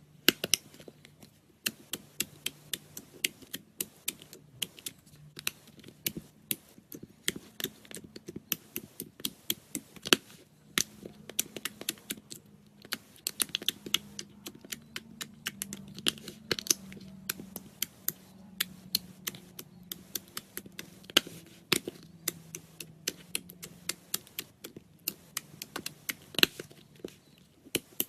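Slime being squeezed and poked by hand, giving rapid, irregular sticky clicks and pops, with a faint low hum underneath.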